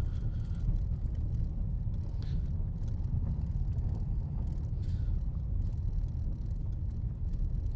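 Steady low rumble of a Hyundai driving, with engine and road noise heard from inside the cabin.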